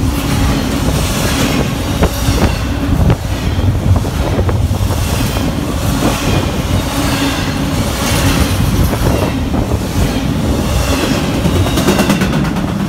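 Double-stack container train's cars rolling past close by: a loud, steady rumble of steel wheels on the rails, with scattered clicks as the wheels cross rail joints.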